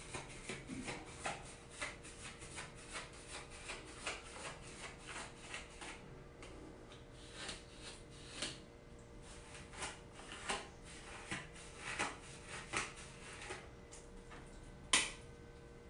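Brush strokes rasping through short, wet 4C hair: quick strokes at about three a second, then slower, irregular strokes, with one louder stroke near the end.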